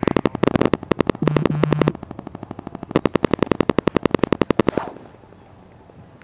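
Two rapid strings of sharp bangs, about a dozen a second: the first lasts about two seconds, and the second starts a second later and runs nearly two seconds before stopping.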